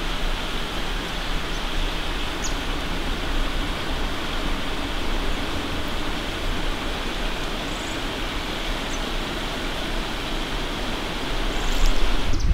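Steady rushing outdoor forest ambience, an even noise like moving air or water, with a few faint high chirps. Near the end, a louder low rumble comes in.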